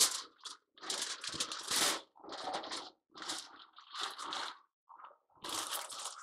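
Aluminium foil crinkling and crunching as it is folded tightly around a brisket point, in a string of rustling handfuls with short pauses between.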